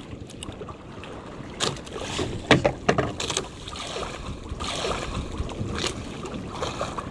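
Wind on the microphone and water moving around a small fishing boat, broken by a few sharp knocks and clicks, the loudest about two and a half seconds in.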